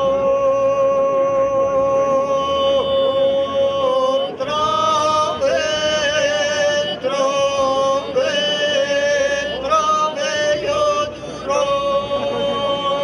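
Two voices, a girl and a young man, singing an unaccompanied Serbian folk song in the loud 'iz vika' style. A long held note gives way about four seconds in to a run of stepped notes with brief breaks, and settles on a held note again near the end.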